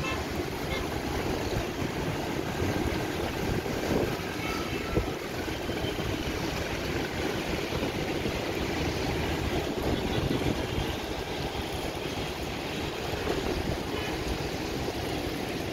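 Steady, uneven rumble of wind across the microphone mixed with the hum of distant city traffic far below, with a couple of brief louder gusts about four and five seconds in.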